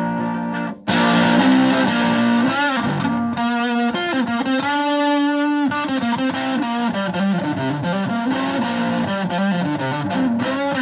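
Electric guitar played through a treble booster pedal into a Fender Twin Reverb–style amp on the edge of breakup. After a short break about a second in, the tone comes back louder and brighter, with lead lines, string bends and a held note in the middle.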